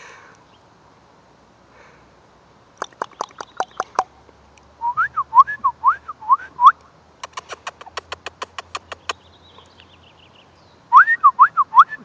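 Person whistling to call a seagull: runs of quick rising-and-falling whistled notes alternating with rapid trains of sharp tongue clicks, about seven a second, starting about three seconds in.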